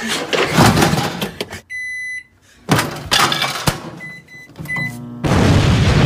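Banging and clattering as a microwave oven is handled roughly, a long electronic beep about two seconds in and a few short beeps around four seconds, then a loud explosion from about five seconds on.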